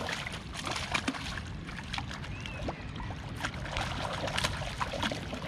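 Hooked catfish thrashing at the water's surface as it is hauled to the bank by the line, a run of irregular splashes.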